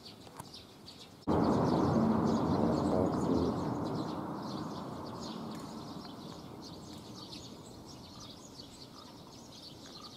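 Small birds chirping throughout. About a second in, a loud low rushing noise starts abruptly and slowly fades away.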